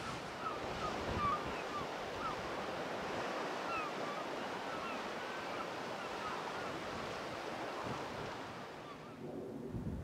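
Sea surf washing steadily on the shore, a continuous hiss of breaking water, with faint short chirps over it in the first half. Near the end the hiss falls away to a lower, duller rumble.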